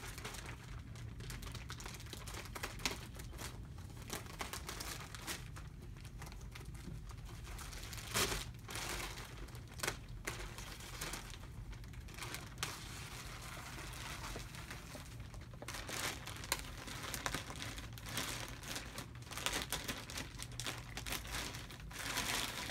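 Thin plastic wrapping on a vacuum-packed foam mattress crinkling and tearing as it is handled and cut open, in irregular bursts with a few louder rips.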